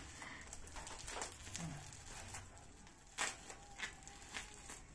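Plastic bubble-wrap packaging and tape on a long parcel rustling and crackling faintly as it is picked at and peeled open by hand, with a few sharper crackles about three seconds in.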